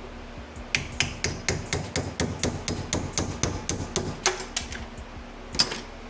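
Hammer tapping on drum-brake parts: a quick run of sharp strikes, about four or five a second, then one harder blow near the end.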